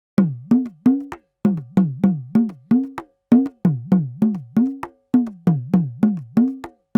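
Udakki, the Sri Lankan hourglass pressure drum, played in short rhythmic phrases of about three strokes a second. Each stroke's note bends down and then back up in pitch as the drum's lacing is squeezed and released.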